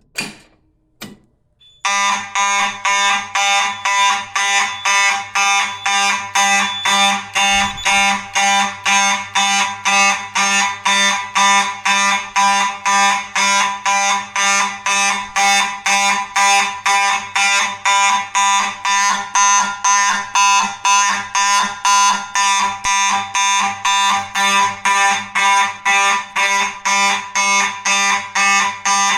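A fire alarm pull station is pulled with a click. About two seconds later the fire alarm horns, a Faraday F1-GT and a Simplex 2901-9833, sound in loud, buzzy, evenly repeated pulses at roughly two a second.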